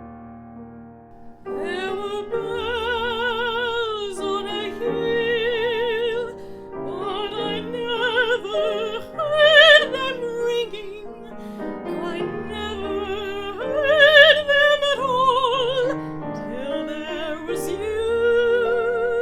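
A woman singing in a classical style with wide vibrato on long held notes, over piano accompaniment; the piano plays alone for about the first second and a half before the voice comes in.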